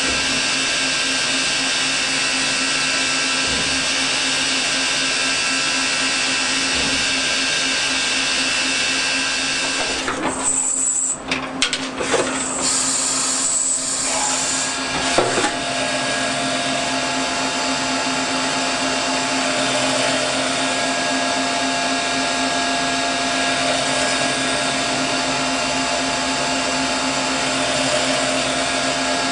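Citizen K16 Swiss-type CNC lathe running in non-guide-bushing mode, cutting a brass part: a steady machine whir with a constant hum and a high whine. About ten seconds in, a few seconds of uneven knocks and a short hiss break in, after which the high whine gives way to a lower steady tone.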